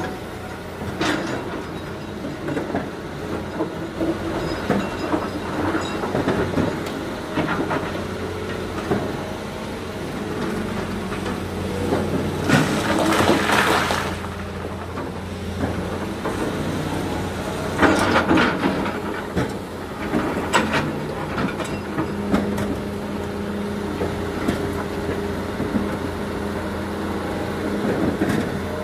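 Heavy diesel machinery running steadily with a low hum, with intermittent metallic clattering and two louder scraping rushes, about twelve seconds in and again about eighteen seconds in.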